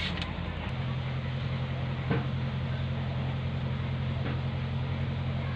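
A steady low motor hum, with one short click about two seconds in.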